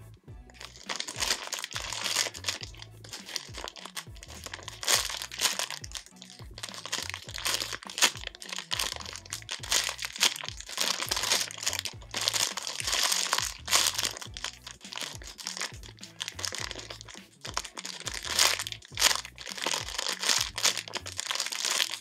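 Clear plastic bag crinkling as a Punimaru Super Jumbo Galaxy Strawberry squishy inside it is squeezed and turned, in an irregular run of crackles. Background music with a steady low beat plays underneath.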